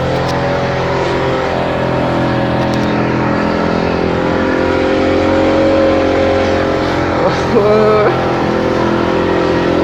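Passenger speedboat's big engine running steadily at speed, a dense, loud drone with no break. A short voice-like call rises and falls briefly about three-quarters of the way through.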